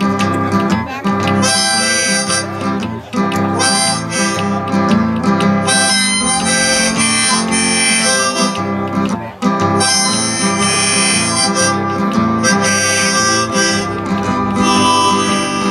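Instrumental break of a country ballad: a harmonica plays a melody over strummed acoustic guitar, in phrases of a second or two.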